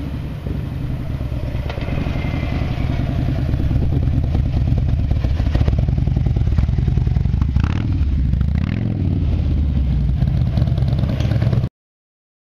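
2008 Harley-Davidson Ultra Classic Electric Glide's Twin Cam 96 V-twin running through Crusher aftermarket mufflers, with a deep pulsing exhaust beat. It rolls in at low speed, growing louder over the first few seconds, then idles close by. The sound cuts off suddenly near the end.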